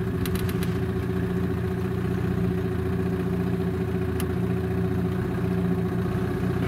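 Small boat's outboard motor running steadily at low trolling speed, its pitch and level unchanging, with a few light ticks about half a second in.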